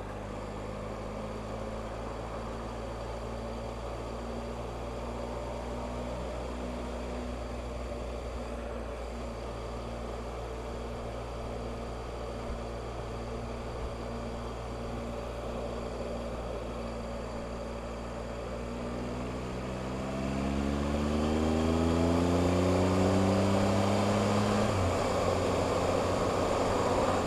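Motorcycle engine running steadily under road and wind noise, then accelerating: from about two-thirds of the way in, the engine note climbs in pitch and gets louder for several seconds. Near the end the note falls off suddenly.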